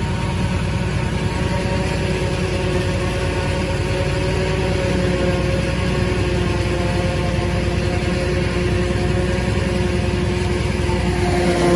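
Steady drone of engines heard from inside a truck cab: the truck running alongside a Claas forage harvester that is chopping corn and blowing it into the truck's box. The machinery gets a little louder near the end.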